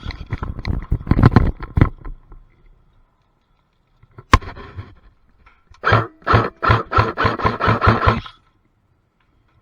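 Airsoft guns firing: a quick cluster of shots, a single sharp shot about four seconds in, then a string of about ten rapid shots at roughly four a second.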